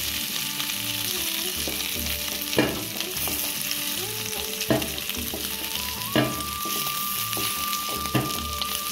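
Small boiled potatoes sizzling in hot oil in a kadai, a steady hiss, while a wooden spatula stirs them. The spatula knocks against the pan four times, sharp and spaced about two seconds apart, as the browned potatoes are lifted out.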